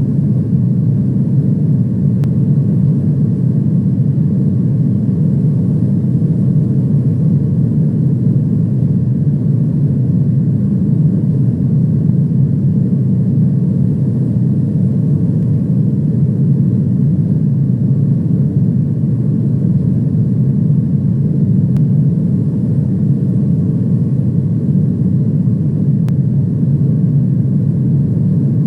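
Steady low rumble of an aircraft in flight, heard from inside the cabin, with no change in pitch or level.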